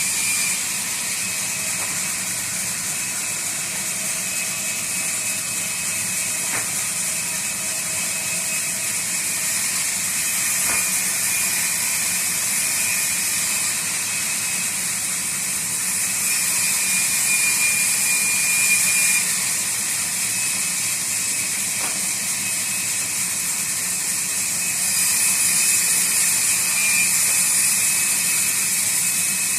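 Sawmill blade running through a log to cut a slab: a steady hissing whine with a thin high tone, swelling a little louder twice.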